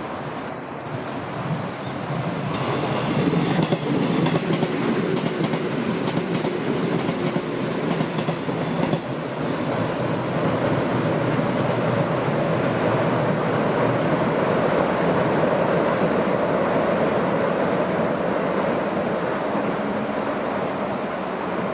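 JR West 201 series electric commuter train crossing a steel railway bridge. It builds a few seconds in with rhythmic wheel clicks over the rail joints, then settles into a steady rumble that eases near the end.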